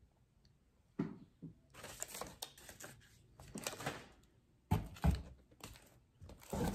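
Books being handled and taken out of a shipping box, with packaging rustling and crinkling and a couple of dull thumps about five seconds in.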